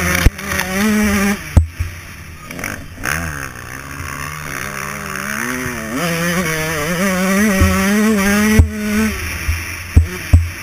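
Dirt bike engine revving, its pitch climbing and dropping again and again as the throttle opens and closes, heard close from the bike itself. Several sharp knocks cut through it, a few near the end.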